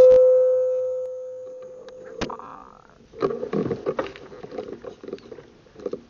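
A horn-like tone fading out over the first two seconds, a single sharp click, then irregular knocking and rustling from a scoped air rifle being handled and swung down toward the grass.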